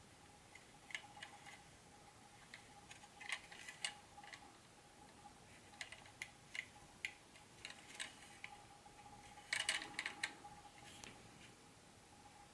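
Irregular light clicks and taps of hands handling the pieces of a model train set during unboxing, with a quick flurry of clicks about ten seconds in. A faint steady hum sits underneath.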